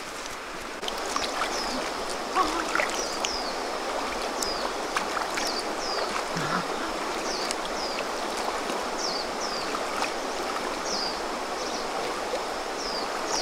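Shallow stream water running steadily, with short high falling chirps repeating about once a second above it.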